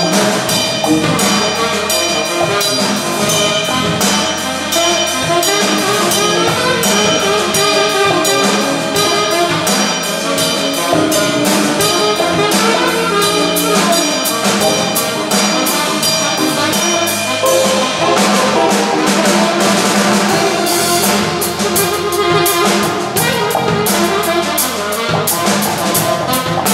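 Small jazz combo playing live: saxophones over electric guitar, electric bass and a drum kit with steady cymbal strokes.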